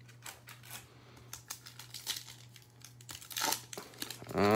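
Foil trading-card pack wrapper crinkling and tearing as it is handled and ripped open by hand: a run of scattered crackles, loudest about three and a half seconds in.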